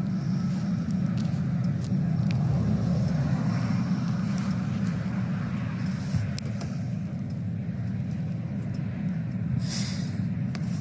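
Steady low rumble of a car, heard from inside it, with a few faint clicks.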